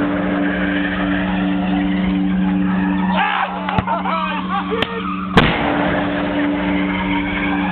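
Hail cannon firing once with a sharp, loud bang about five seconds in, over the steady hum of its running machinery; a couple of smaller clicks come just before the bang.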